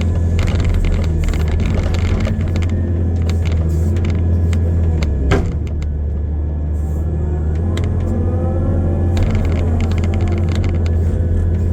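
Tracked excavator's diesel engine running steadily under work, with the hydraulics whining up and down in pitch near the end and scattered clicks and clanks from the machine. There is one sharp knock about five seconds in.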